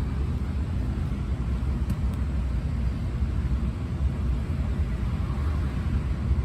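Subaru Sambar Dias Wagon on the move: a steady low rumble of road and engine noise.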